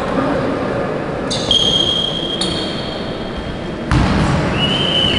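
Court noise of a basketball game on a hardwood floor: long, high thin squeals start about a second in, and a sudden thud comes near the end.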